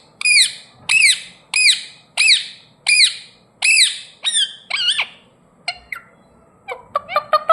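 Ringneck parrot screeching, a run of about eight loud rise-and-fall calls roughly two-thirds of a second apart. After a short quieter spell with a few faint clicks, a quick burst of short chirps comes near the end.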